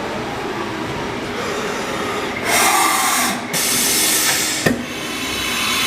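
Haas VM-3 CNC vertical machining center running, with a steady mechanical hum broken by two loud hissing blasts about a second each, and a sharp click between the second blast and the end.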